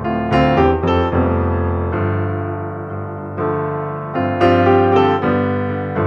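Background piano music: notes struck in clusters, with a bright group of notes about a second in and again past the middle.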